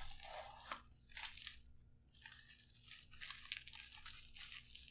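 Faint, irregular crinkling and crackling of packaging being handled and pulled apart by hand, with a short lull about halfway through.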